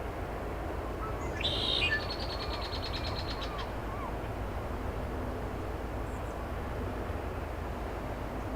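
A wild bird calls about a second in: a short, loud note followed by a fast, rattling trill that lasts about two seconds, over a steady low rumble.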